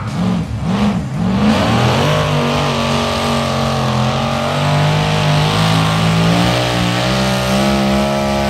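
Engine of a hot-rod-bodied pulling vehicle running hard at high revs under load as it drags a tractor-pull sled. The revs surge unevenly for the first second or so, then settle into a loud, steady high-pitched drone that edges up slightly.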